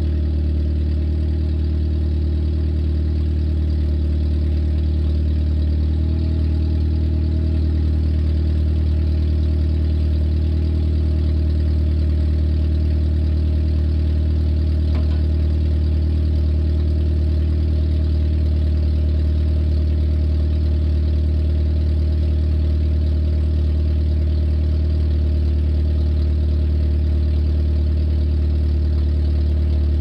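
1994 Nissan Sentra's GA16DE 1.6-litre four-cylinder engine idling steadily with no exhaust fitted: open manifold, running straight out of the header with no muffler or resonator.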